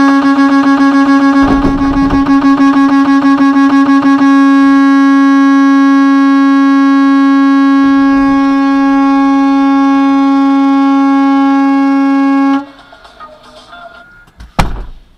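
A vehicle horn blaring as a warning at a semi trailer backing toward it. It stutters in rapid short honks for about four seconds, then holds one long steady blast for about eight seconds before cutting off. A single loud thump comes about a second and a half before the end.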